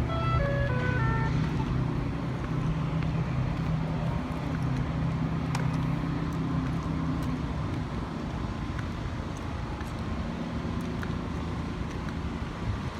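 City street traffic, with vehicle engines running and a steady low engine hum through the first half. A short tune of electronic beeps plays in the first second or so.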